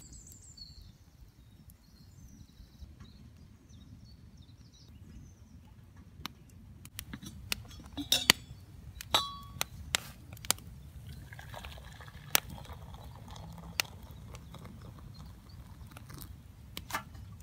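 Metal clinks as the lid and handle of a small black camping kettle are handled, then hot water poured from a larger kettle onto coffee grounds in it, a steady pour through the second half.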